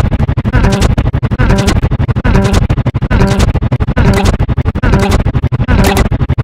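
Loud music with a fast, choppy rhythm, many short pulses a second; right at the end it switches abruptly to a denser, steadier track.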